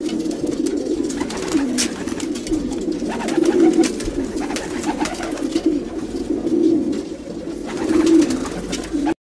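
A flock of racing pigeons cooing together, a steady chorus of many overlapping low coos, with scattered sharp clicks among them.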